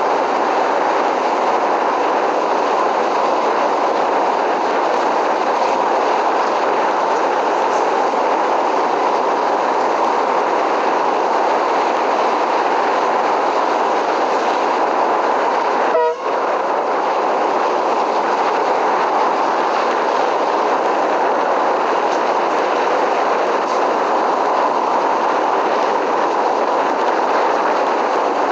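A moving train making steady, even running noise on the rails, with a brief break in the sound about sixteen seconds in.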